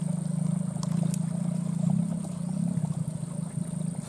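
A small engine running steadily, a low hum with a fast even pulse, with a thin high steady tone above it.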